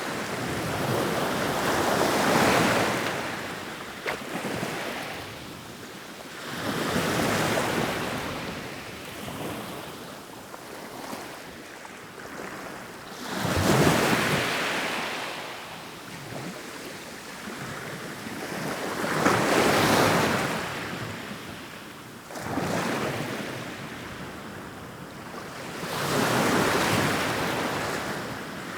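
Ocean waves rolling in and washing over the shore, each wave a swell of surf that builds and fades, a new one every five or six seconds.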